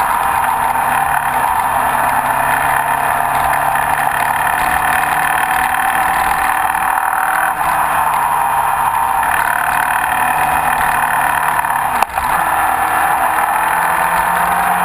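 Suzuki GSX-R1000 K3's inline-four engine running steadily, with a mechanical noise that appeared after it ran low on oil, which the owner suspects could be the bucket tappets, a connecting-rod bearing or the crankshaft. The engine speed sags and recovers slightly, and there is a sharp click with a brief dropout about twelve seconds in.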